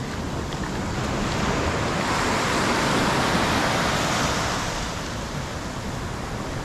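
Ocean surf: a wave breaking and washing in, swelling to a peak about halfway through and then easing off.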